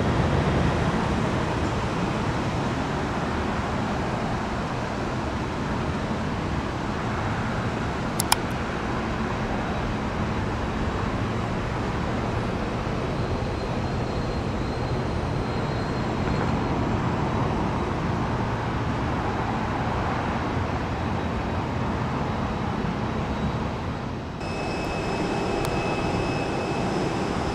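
Steady rumble of airliner jet engines. There is a single sharp click about 8 seconds in. Near the end the sound changes abruptly to a similar rumble with faint high whining tones.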